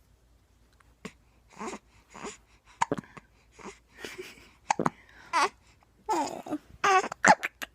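Baby with hiccups: a run of short hiccups and small babbling sounds about every half second, with a couple of longer whiny vocal sounds in the last few seconds.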